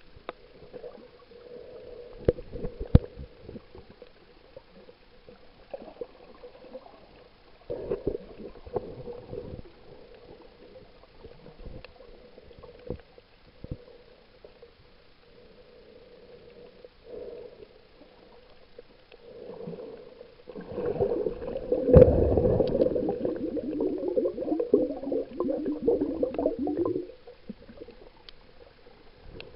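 Water gurgling and bubbling around an underwater camera, with scattered sharp clicks, and a louder stretch of bubbling lasting several seconds about two-thirds of the way through.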